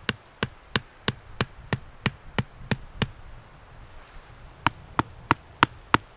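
Sharp wood-on-wood knocks, about three a second: a wooden tent peg being driven into the ground with a wooden club. The knocks come in two runs, with a pause of about a second and a half in the middle.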